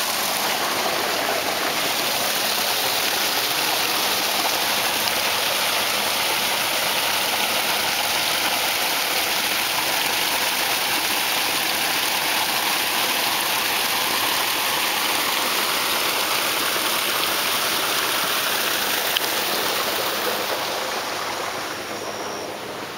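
Running water of a small stream, a steady rush that grows fainter near the end.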